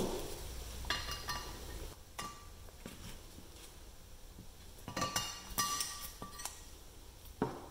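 A few sharp metal clinks with short ringing as a screwdriver and wrench work the fixing screw of a steel cutter blade on a cast iron tape dispenser. The clinks come about a second in, again around two seconds, in a cluster near the five-to-six-second mark, and once more near the end.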